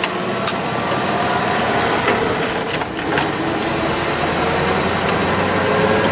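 Dump truck engine, newly fitted with a carburetor in place of throttle-body injection, running steadily under load as the truck drives, with a few sharp clicks or rattles over it.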